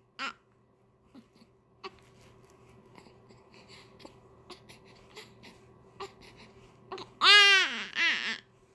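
A 24-day-old newborn crying from hunger: a short cry at the start, faint fussing sounds, then a loud cry in two pulls near the end.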